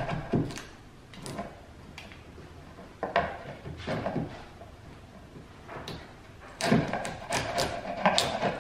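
Sharp steel wood chisel scraping old paint off hardwood trim in short strokes: a few separate scrapes through the first part, then a quick run of scrapes near the end.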